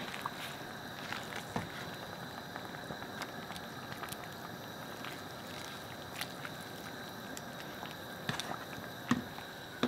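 A black plastic ladle pressing vegetables down into a pot of simmering soup on a gas hob. It makes scattered light clicks and knocks against the pan, the loudest near the end, over a steady low hiss.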